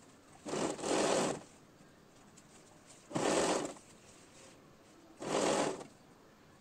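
Electric domestic sewing machine stitching fabric in three short bursts, each under a second long and about two seconds apart.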